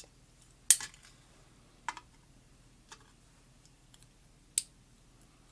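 Four small, sharp metal clicks spaced out over a few seconds, the first about a second in the loudest: driver pins being taken out of a pin-tumbler lock's chambers during disassembly.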